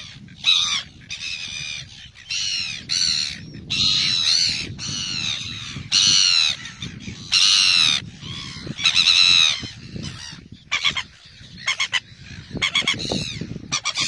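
A red-billed gull colony calling: one harsh, pitched cry after another, each about half a second long, with a quicker run of short sharp calls near the end. The birds are loud enough to be called noisy.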